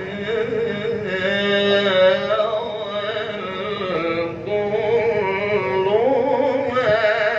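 A man reciting the Qur'an in the melodic tilawah style into a microphone: one long, unbroken, ornamented line with a wavering pitch. The pitch climbs higher about six seconds in.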